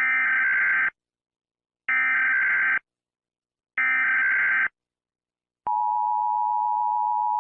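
Emergency Alert System SAME header: three identical bursts of data-modem screeching, each just under a second long and about a second apart. Then comes the steady two-tone EAS attention signal, starting a little over halfway through, which marks the start of an emergency alert.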